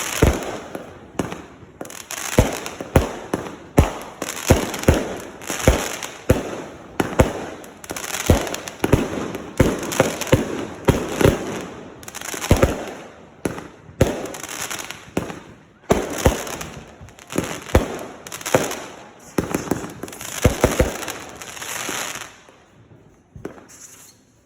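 Consumer fireworks firing a rapid barrage: a string of sharp bangs about two a second, with crackle between them. It thins out near the end.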